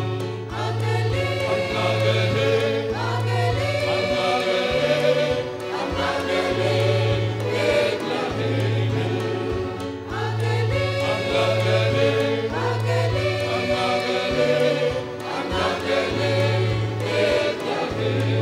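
Mixed choir of men and women singing a Christmas song in parts, with instrumental accompaniment holding long low bass notes underneath.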